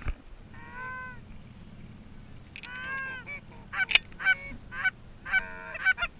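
Canada geese honking: two drawn-out honks, then a quick run of short honks and clucks from about four seconds in.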